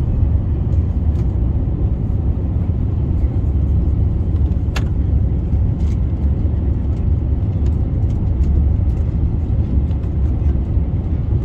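Steady low rumble of engine and airflow noise inside a jet airliner's cabin, the plane descending on approach to land.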